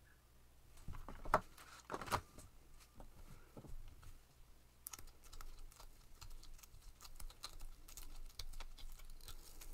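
Cured epoxy resin pieces and a silicone mold being handled: two louder knocks about one and two seconds in, then a run of quick, light clicks and crackles as a resin coaster is worked out of its flexible silicone mold.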